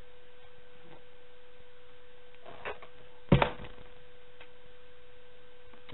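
Quiet room tone: a steady hiss with a faint constant hum, broken a little past halfway by one short, sharp knock.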